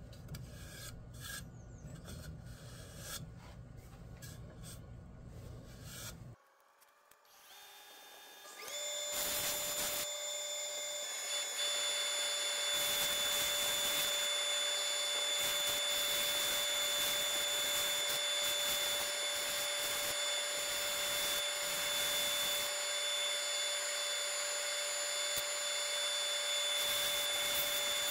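Sandpaper rubbing inside a white pine bowl spinning on a wood lathe: a steady rasping hiss over the thin whine of the lathe motor. It is quieter for the first few seconds, dips briefly, then comes in louder about nine seconds in.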